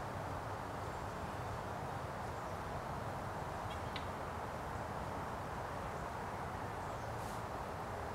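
Steady outdoor background noise, even and without any beat, with a faint high chirp about four seconds in.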